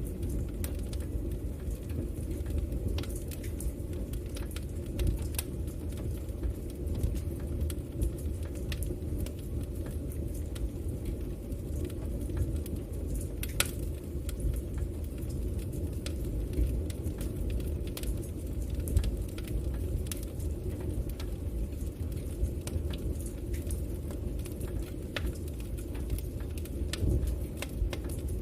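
Fire burning in a fireplace: scattered sharp crackles and pops over a steady low rumble, with one louder pop about halfway through.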